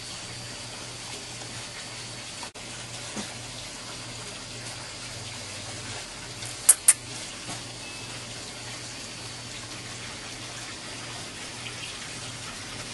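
A steady rushing hiss like running water, with two sharp high clicks in quick succession a little past halfway through.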